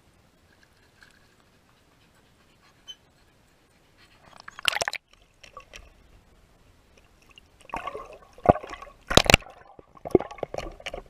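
A dog's muzzle splashing and sloshing in pool water right beside the camera, heard from water level. It comes as a brief burst about four and a half seconds in, then a run of splashes in the second half, the loudest just after nine seconds.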